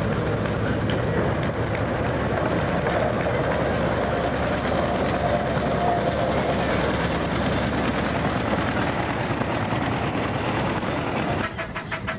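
Narrow-gauge diesel locomotive running as it approaches and passes close by. Near the end the sound changes to an even beat of about three or four strokes a second from a small steam locomotive hauling its train.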